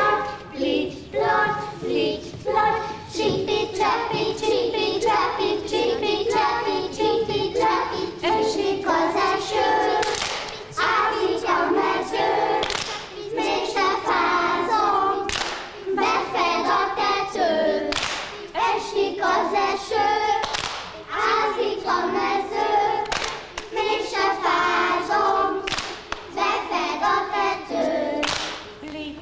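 A group of young children singing a nursery song together in unison, clapping their hands in time. Sharp, louder claps stand out about every two and a half seconds.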